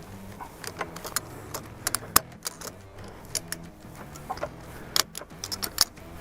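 Ratchet strap's ratchet being released click by click under load, a run of sharp irregular metal clicks with the loudest about two seconds in, as a strut-supported vehicle is lowered in a controlled way.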